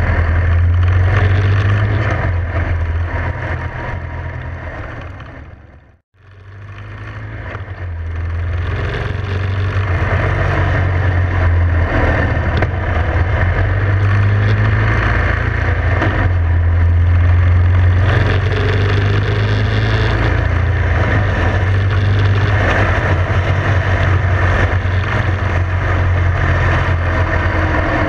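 Motorcycle engine running steadily at road speed with wind rush, heard from onboard the riding bike. The sound fades out to near silence about six seconds in, then fades back up and carries on steadily.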